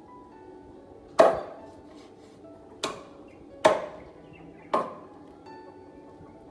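Meat cleaver chopping a raw chicken on a wooden cutting board: four hard chops spread over a few seconds, the first the loudest. Faint background music with held notes underneath.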